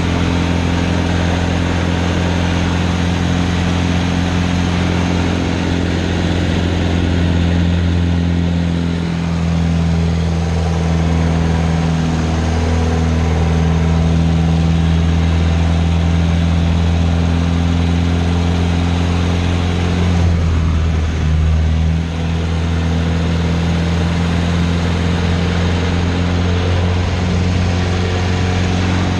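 Pitts Special biplane's piston engine and propeller running steadily at high power in flight, heard from inside the cockpit as a loud, even drone. The engine note wavers and dips briefly about twenty seconds in.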